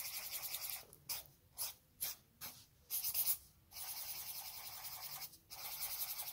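Sharpie marker drawing on paper: the felt tip scratching across the sheet in strokes, first several quick short ones, then longer ones with brief pauses between.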